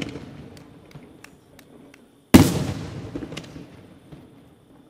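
Aerial firework shells bursting in a night display. A few small crackling pops sound as the echo of an earlier burst fades, then one loud bang comes a little over two seconds in, followed by a long echoing decay.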